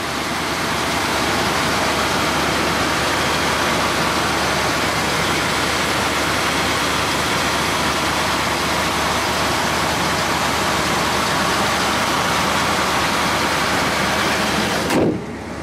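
Rebuilt Cadillac 425 cubic-inch V8 idling steadily, heard close up over the open engine bay. It cuts off abruptly near the end.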